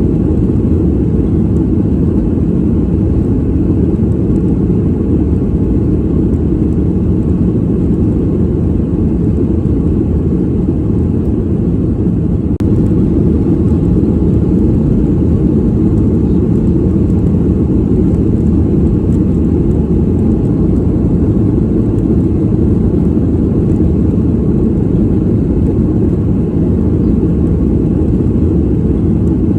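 Steady airliner cabin noise in flight: a low, even rumble of engines and airflow with little above the low range, stepping up slightly in level about halfway through.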